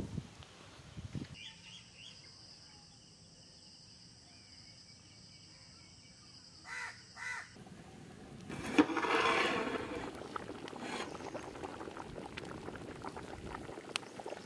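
Chicken curry bubbling in a pot over an open fire, the bubbling and crackle swelling up about two-thirds of the way in. Before that it is quiet, with a faint steady high whine and two short pitched calls.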